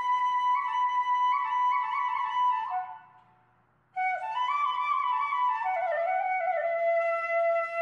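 Background instrumental music: a slow melody of held notes that fades out about three seconds in and starts again a second later.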